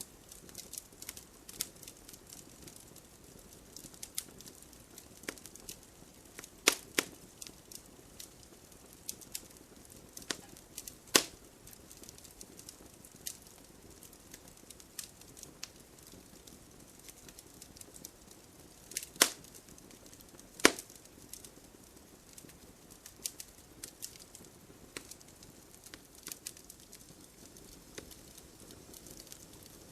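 Wood fire crackling in a fireplace: irregular small snaps and pops over a soft steady rush of flame, with a few much louder sharp pops.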